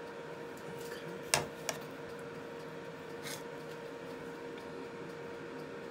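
Air fryer running with a steady hum. A sharp click about a second and a half in, a softer click just after it, and a brief swish a little past three seconds.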